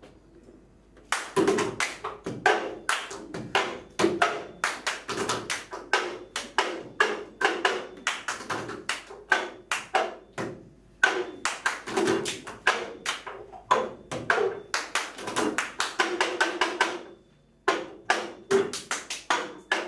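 Fast, uneven run of sharp knocks and claps, about four a second: drinking glasses rapped upside down on a small tabletop, with hands clapping and slapping the table. It starts about a second in and breaks off briefly near the end before picking up again.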